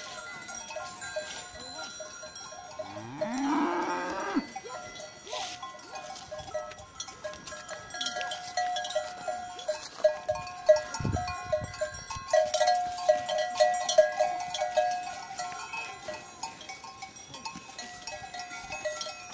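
Cowbells on a herd of walking cattle clanking irregularly, with one cow mooing in a rising call about three seconds in.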